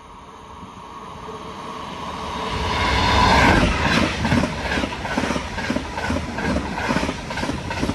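DSB passenger train of two IR4 electric units and an IC3 set passing through the station without stopping at about 159 km/h. A rising rush as it approaches, loudest about three and a half seconds in as the front passes, then a fast, regular clatter of wheels on the rails.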